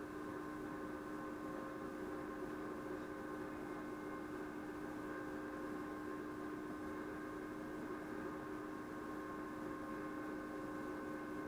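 Steady electrical hum with several fixed tones over a low hiss, unchanging throughout.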